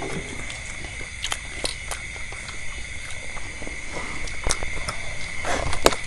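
Close-up eating sounds of fried meatballs and vegetables being chewed: scattered mouth smacks and clicks, with a sharper click about four and a half seconds in and another near the end.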